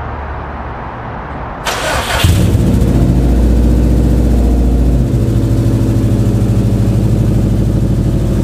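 2004 Subaru Impreza WRX STi's turbocharged 2.5-litre flat-four being cold-started: the starter cranks for about a second and a half, the engine catches with a short flare about two seconds in, then settles into a loud, steady cold-start idle through an aftermarket downpipe.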